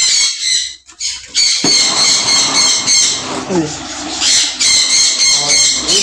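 A large aviary of parakeets and other parrots squawking together in a dense chorus of harsh, rapidly repeated high calls, with a brief lull a little under a second in.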